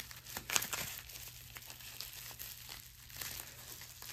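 Plastic bubble wrap and packaging crinkling and rustling as it is handled, with a few light clicks in the first second.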